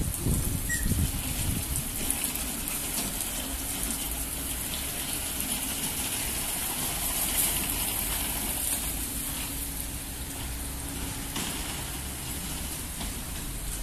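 Automatic gantry car wash running: a steady rush of water over a low, even machine hum.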